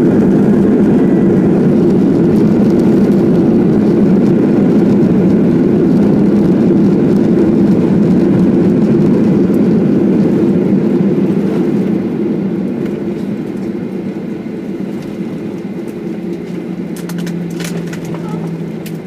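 Jet airliner cabin noise during the landing roll: a loud, steady rumble of engines and rushing air that eases off about twelve seconds in as the aircraft slows on the runway. A low steady hum comes through near the end, with a few faint clicks.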